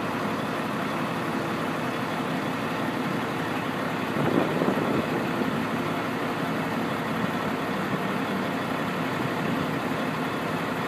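EWS Class 66 diesel locomotive 66077's EMD two-stroke V12 engine running steadily while shunting at low speed. Its sound swells briefly louder about four seconds in.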